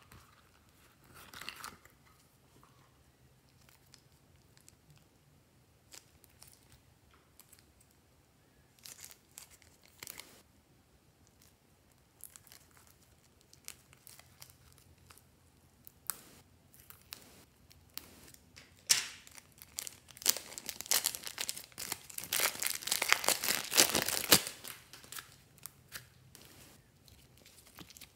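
Soft green slime being pulled and stretched by hand, making sticky crackling and tearing sounds. Scattered small clicks come first, then a dense, louder run of crackling about two-thirds of the way through.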